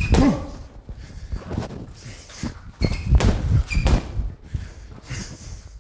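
Boxing gloves striking a TKO heavy punching bag: several dull thuds spaced roughly a second apart, with short breathy exhales among the punches.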